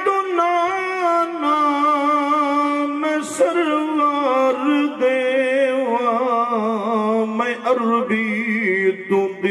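A man chanting a Punjabi devotional verse unaccompanied, singing long held notes that waver and slide between pitches.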